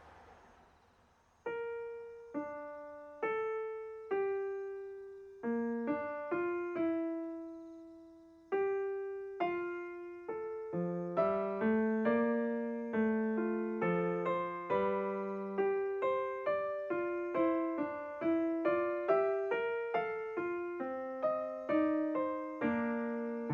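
Background piano music: a gentle solo melody begins about a second and a half in, with single struck notes that fade away. The notes are slow and spaced at first, then come quicker and fuller from about halfway through.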